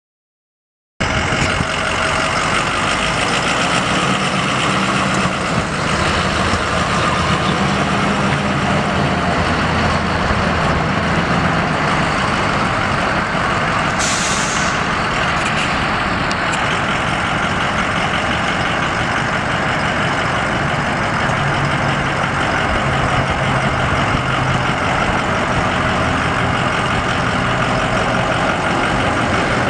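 A 2006 Ford F250 Super Duty's 6.0-litre V8 turbo diesel idling steadily, coming in abruptly about a second in. A brief hiss is heard about halfway through.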